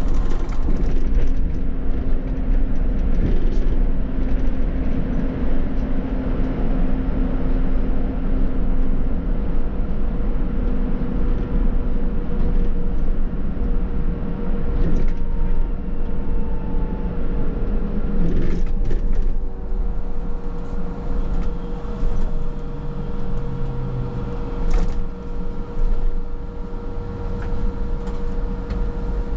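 Škoda 27Tr trolleybus on the move: a low rumble of road and body noise with a steady electric whine from its traction and auxiliary equipment. One lower whine fades out about halfway, and a few sharp knocks and rattles come later.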